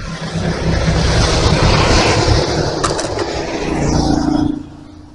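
A motor vehicle passing on the road close by: it builds up, stays loud for about four seconds, then falls away quickly near the end.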